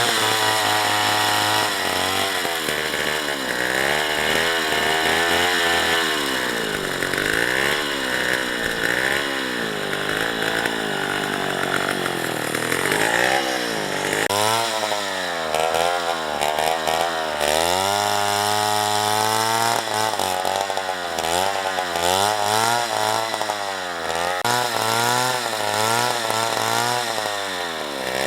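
Chainsaw engine running under load through wood, its pitch rising and falling over and over as the throttle is worked and the chain bogs in the cut.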